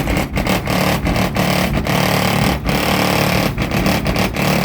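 Two 15-inch Kicker subwoofers in a car playing bass-heavy music at high volume. The sound is a dense, distorted buzz with strong low bass and short dips every half second or so.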